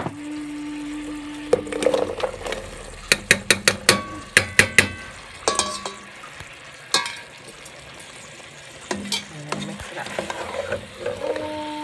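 Diced pumpkin dropped into a metal pot of frying chicken: a quick run of sharp knocks, some ringing off the pot, about three to five seconds in, then a plastic spatula stirring the pieces with a steady sizzle of frying. A low steady hum runs through the first two seconds.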